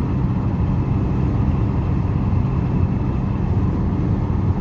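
Hyundai HR light truck's diesel engine and road noise heard from inside the cab while driving, a steady low drone.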